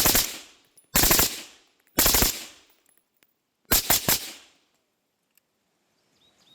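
AR-15 rifle with an Atrius Super Selektor firing four short automatic bursts of a few rounds each, about a second apart, with a slightly longer gap before the last. The adjustable bolt carrier group is set to its third position, which keeps the rate of fire controllable.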